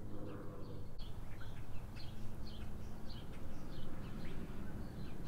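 Faint high chirps of small birds scattered throughout, over a low steady hum that is strongest in the first second.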